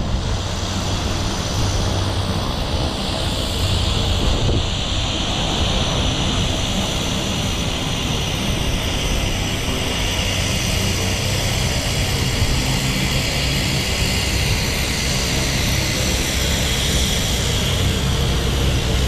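A floatplane's propeller engine running, with a high whine that drifts slowly in pitch, heard over the steady rush of a moving boat's engine, wind and water.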